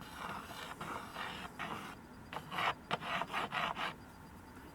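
Writing on a small toy chalkboard: a series of short scratchy strokes, coming faster and a little louder in the second half.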